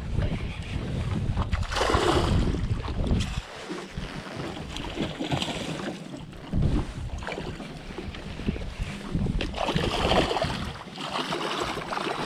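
Wind buffeting the microphone over water moving around a small aluminium fishing boat, with louder splashy washes of noise about two seconds in and again about ten seconds in.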